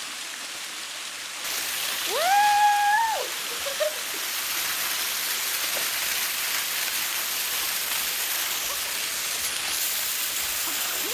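Small waterfall's water rushing steadily; it gets suddenly louder about a second and a half in. About two seconds in, a person gives a short high yell that rises, holds and then drops.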